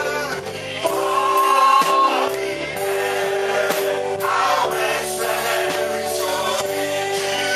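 Choir singing a gospel worship song with instrumental accompaniment, held notes in several voices over a steady beat.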